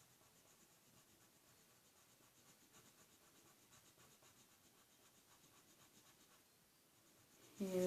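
Faint scratching of a felt-tip marker drawing on paper.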